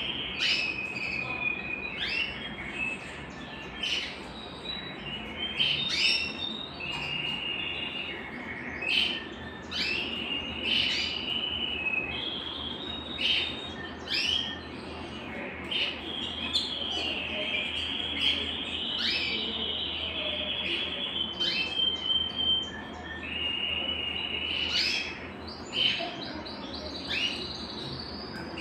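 Belgian canary singing a long, unbroken song of rapid trills and quick sweeping notes.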